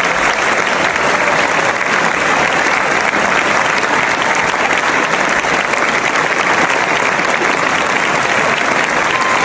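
Large crowd applauding, with dense, even clapping that holds at a steady level.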